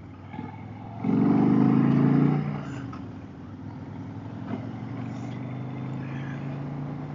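Harley-Davidson V-twin motorcycle engine surging loudly for about a second and a half, then settling into a steady, quieter run at road speed.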